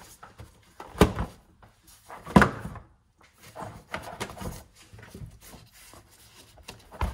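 Plastic engine cover of a BMW X5 35d being pulled straight up off its catch points: two sharp plastic thunks about a second and a half apart, then a few faint ticks of handling.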